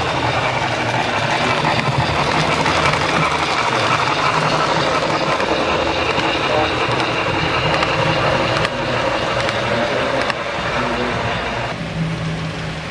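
Model train cars rolling past on the layout track, a steady rumble with a few sharp clicks, over a murmur of indistinct voices in the room.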